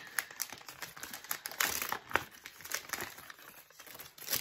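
Paper crinkling and rustling in irregular bursts as a gift is unwrapped by hand, with a few sharper crackles along the way.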